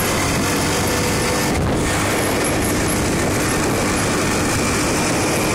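A motor scooter riding at speed: steady wind rush on the microphone, with the scooter's engine running under it.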